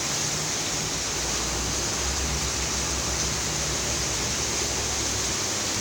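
Heavy rain pouring steadily onto pavement and lawns, an even hiss. A low rumble sits underneath for a few seconds in the middle.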